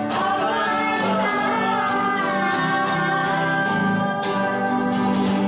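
Adults and a child singing together with a strummed acoustic guitar, a firm strum about four seconds in.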